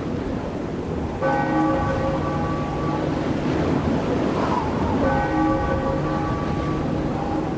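Music made of bell-like chimes: a chord of ringing tones is held for about two seconds, returns about four seconds later, and plays over a steady hiss.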